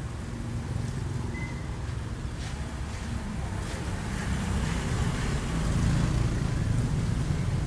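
Low rumble of street traffic, growing louder about halfway through as vehicles pass.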